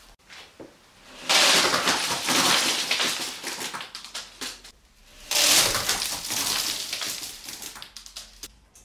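Two long bursts of dense crackling and crunching, like brittle material being crushed and snapping under weight. The first starts about a second in and the second about halfway through.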